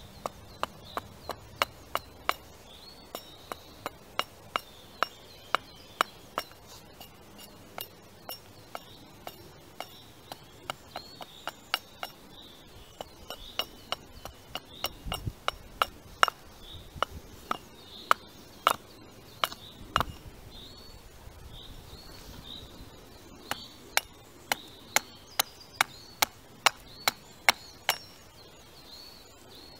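Small carving axe chopping into a wooden spoon blank set on a stump: crisp wood-on-steel chops, about two a second, with a short pause about two thirds of the way through.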